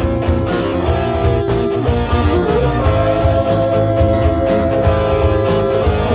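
Rock music led by electric guitar holding sustained notes, with one note bent upward about halfway through, over a bass line and a steady beat with a hit about once a second.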